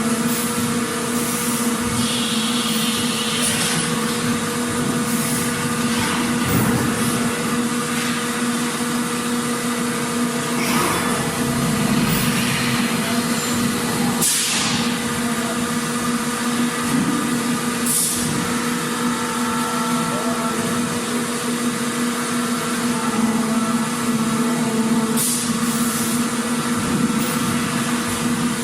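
Factory floor ambience: a steady machine hum over a dense mechanical clatter, broken by short hisses every few seconds.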